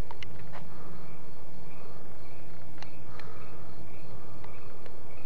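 Crickets chirping faintly over a steady low hum, with a few small clicks.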